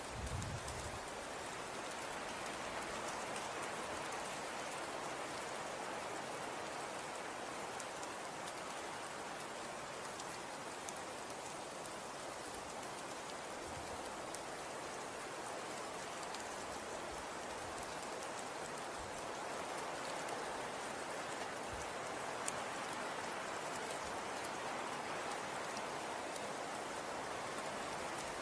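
Steady patter of falling precipitation on a surface: an even soft hiss with scattered faint ticks, and a brief low thump right at the start.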